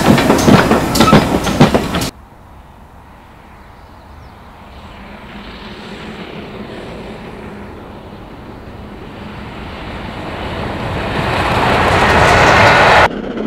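GWR Hall-class 4-6-0 steam locomotive working close by, its exhaust beating sharply, cut off suddenly after about two seconds. Then a steam locomotive hauling a passenger train approaches from a distance, its rumble on the rails growing steadily louder to a peak near the end, where it cuts off.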